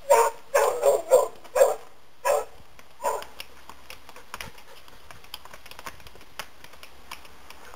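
A dog barking, about seven short barks in quick succession over the first three seconds, the last few more spaced out. After that, light faint clicks of a miniature Shetland pony's hooves on stone steps.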